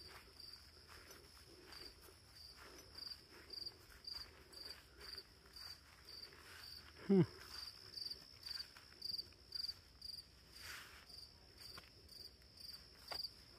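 Crickets chirping steadily in a high, even pulse of about two chirps a second. About halfway through comes one short, louder sound sliding down in pitch.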